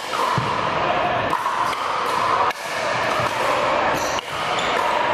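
Pickleball rally: a paddle striking a hollow plastic pickleball, with several short sharp pops spread over a few seconds, over a steady background hum.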